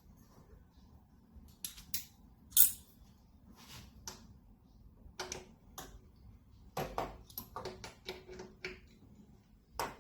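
Socket wrench clicking and clinking against metal while undoing the pool pump's housing screws: irregular clicks and taps, with one sharp loud click about two and a half seconds in and a quick run of clicks near the end.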